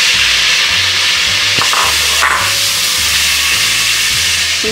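Steady sizzling hiss of cubed green papaya cooking in a hot metal pan, with a short click about halfway through. Soft background music with a low beat runs underneath.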